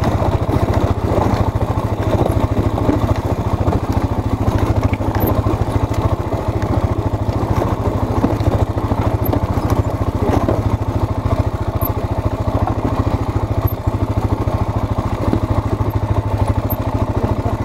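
Quad bike engine running steadily at a low, even speed as the machine is ridden over a rocky dirt trail.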